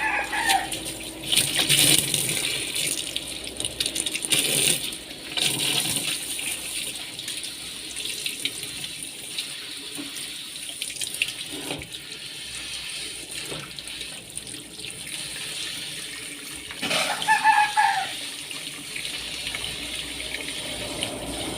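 Water running from a tap and splashing as a part taken out of a washing machine is rinsed under it, with louder surges of splashing now and then.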